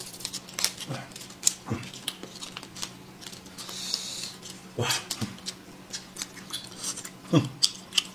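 Small plastic snack packets crinkling and being torn open, a quick run of sharp crackles with a longer tearing rustle about four seconds in, with chewing in between.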